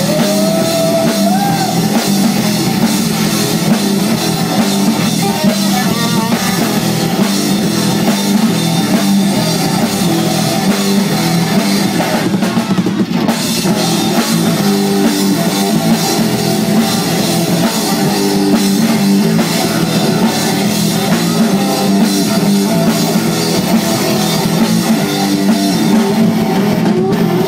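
Live rock band playing a loud, steady instrumental passage: drum kit and electric guitar over the stage PA.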